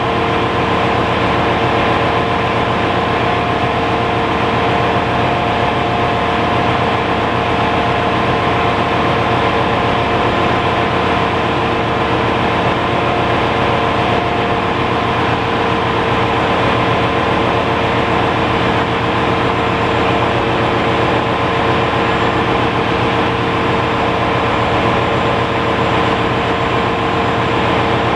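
Ship's engine-room machinery running: a steady, loud drone with several constant humming tones that do not change.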